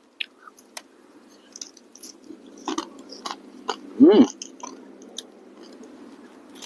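A person chewing crispy fried fish close to the microphone: a string of small crunches and wet mouth clicks, with a short hum about four seconds in.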